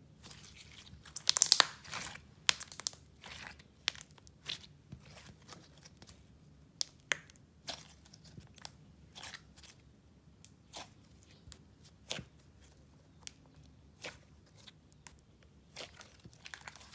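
Teal jelly slime being stretched, folded and squeezed by hand, giving irregular wet clicks and pops, loudest in a quick cluster about a second in.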